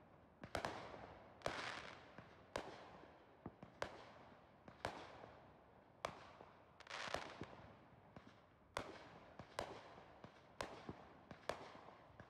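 Fireworks going off: a faint, steady run of sharp bangs, roughly one or two a second, each trailing off.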